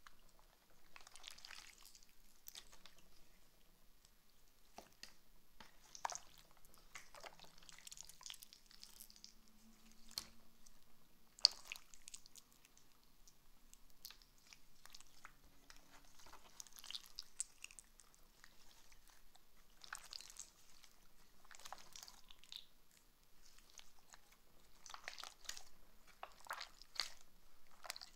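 Slime being squeezed and kneaded by hand, with irregular sticky crackles and small pops coming in uneven bursts.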